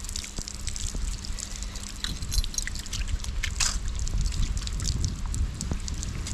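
Water trickling, with many small irregular splashing ticks over a steady low rumble.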